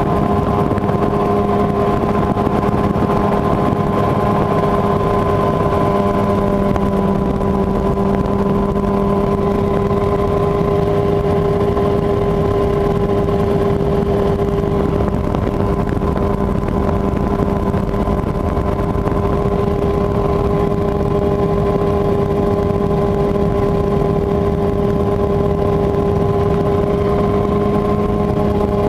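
Mosquito XE ultralight helicopter in flight: its engine and rotor give a loud, steady drone with a constant pitch.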